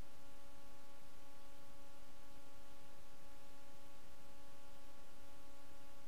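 Steady electrical hum of a few fixed pitched tones over a faint even hiss, unchanging throughout, with no other sounds.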